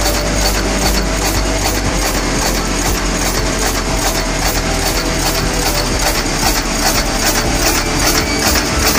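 Peel-off can end making machine running, its press stroking steadily at about three strokes a second amid a dense metallic clatter, with a steady machine hum underneath.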